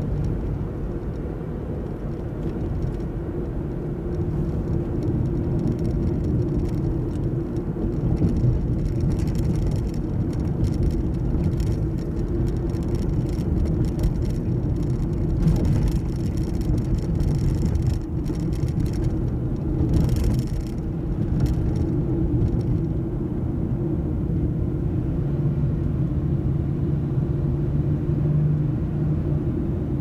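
A car driving at moderate speed, heard from inside the cabin: a steady low rumble of engine and tyres on the road, with tyre and wind noise swelling and fading. A steady low hum comes up for a few seconds near the end.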